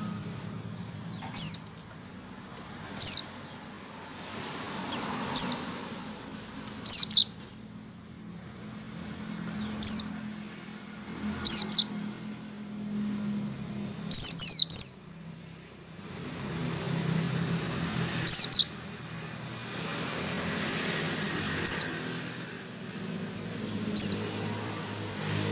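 Caged white-eye (pleci) giving short, sharp chirps that drop quickly in pitch, about a dozen single or doubled calls a second or few apart, with a quick cluster about halfway through. These are the bird's 'ngecal' opening calls, the warm-up before its full song.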